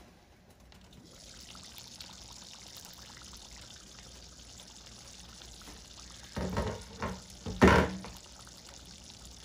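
A pot of thick Ethiopian wot stew boiling hard: a steady bubbling hiss, with two louder bursts about six and a half and nearly eight seconds in.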